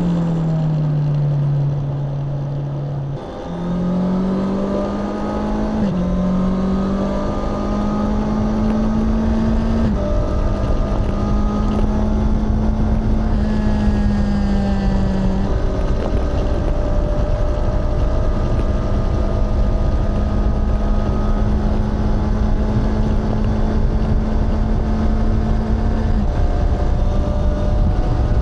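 Honda CBR650R's inline-four engine and exhaust under way. Its note climbs and then drops sharply at quick gear changes about 3, 6 and 10 seconds in, then holds steady at cruise over a rushing noise.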